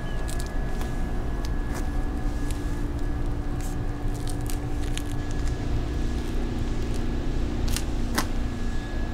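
Steady low rumble with a faint steady hum, and a scattering of light clicks and taps.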